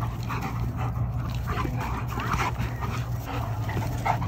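Dogs wrestling in rough play, giving many short vocal calls, several a second, over a steady low hum.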